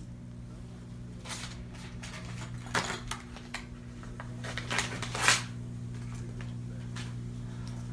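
Short rustles and crinkles of hospital bedding being handled, loudest about five seconds in, over a steady low electrical hum.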